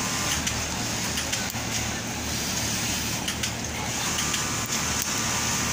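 Electric motor of a fabric-cutting machine running steadily, a constant low hum with a high whirring hiss, and a few faint clicks as the blade guard is handled.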